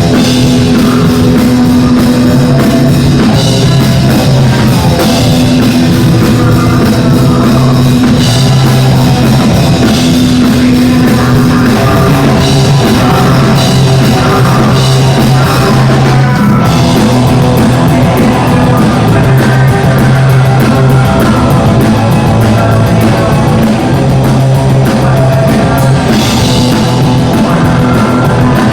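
Live band playing loud rock music, with drum kit and sustained low notes.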